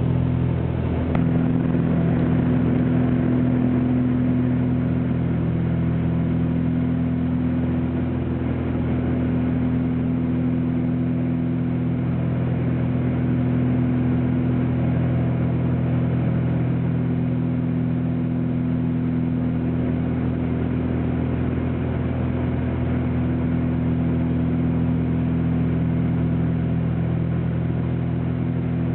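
Small private plane's engines running steadily in flight, heard from inside the cabin as an even low hum.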